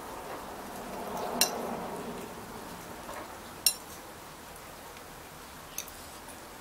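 Forks and knives clinking against plates while cutting and eating lasagna: three short sharp clinks, about a second and a half in, near the middle (the loudest), and near the end.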